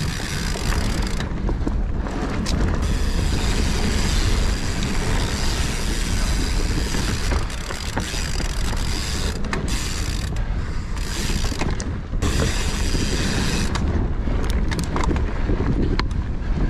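Mountain bike riding fast down rough forest singletrack: a continuous rattle and clatter of the bike over dirt and roots, with many small clicks, over a low wind rumble on the camera microphone.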